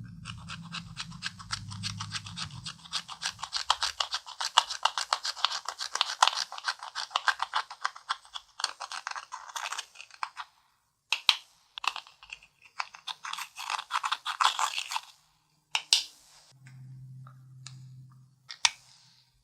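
Hands working sticky clear slime mixed with eyeshadow: a dense run of rapid crackling clicks, then shorter bursts of crackles and a few single snaps near the end. A faint low hum sits under it at the start and again near the end.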